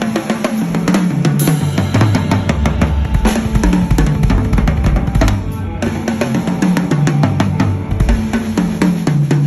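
DW Design Series acrylic drum kit (8, 10, 12, 14 and 16-inch toms, 22-inch bass drum, OCDP snare) on freshly fitted heads, played in fast fills that step down in pitch around the toms from the small toms to the floor toms, twice, over bass drum and snare hits.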